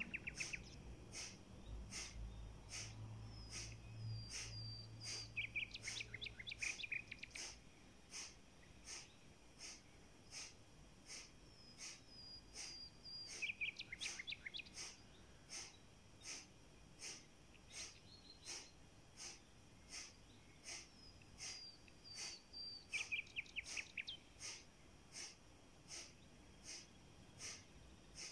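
Faint, regular sharp nasal exhalations of kapalabhati breathing, about one and a half a second, each pushed out by the belly with a passive inhale between. A bird sings a short burst of chirps three times.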